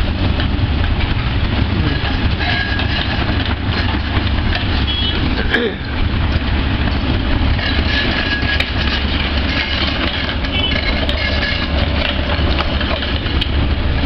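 Diesel engine of a Komatsu crawler excavator running steadily, with a heavy low rumble and no let-up.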